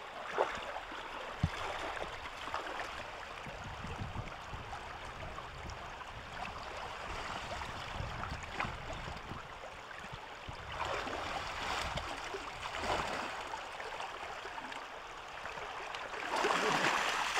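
Shallow muddy water sloshing and splashing as a person wades through it and sweeps a plastic basket through it, louder in stretches near the end.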